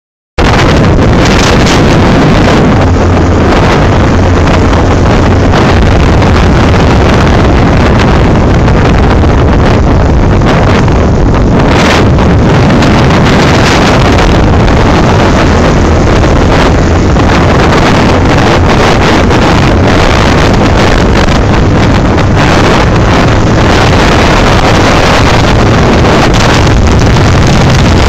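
Heavy wind buffeting on the microphone of a moving motorcycle, loud and unbroken, with the bike's engine droning low underneath.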